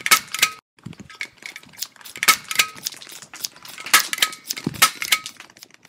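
An irregular run of sharp clinks and clatters, like small hard objects knocking together, some leaving short ringing tones. The loudest come right at the start and about four seconds in, and they thin out near the end.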